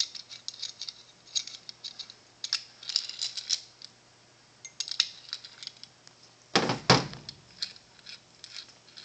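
Light metallic clicks and rattles as the spanner nut of a Forged Flex joint is worked loose, first with a pin spanner wrench and then by hand. There are two heavier knocks a little after six and a half seconds in.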